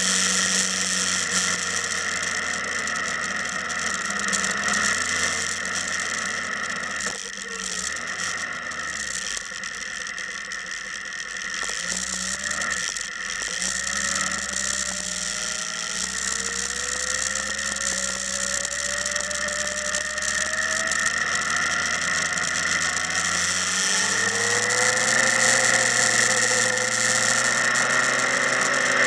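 Motorcycle engine running, its note climbing slowly several times as it pulls away, over a steady high-pitched rushing noise.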